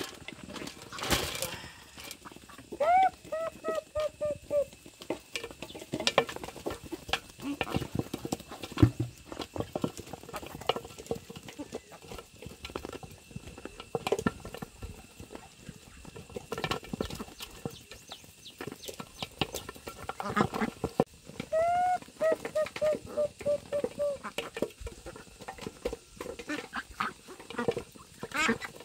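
Irregular clicks and knocks, as of things being handled, with an animal call twice: each a short rising cry followed by a run of quick repeated notes.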